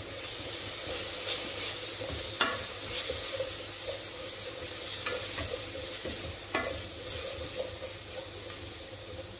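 Onion, garlic paste and ground spices sizzling in hot oil in an enamel pot while a spoon stirs and scrapes them round, with two sharper knocks of the spoon against the pot.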